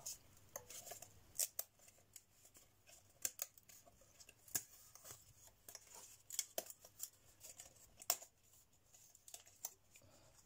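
Faint, irregular small clicks and snaps of thin laser-cut plywood kit parts being handled as a large piece is taken out of its sheet.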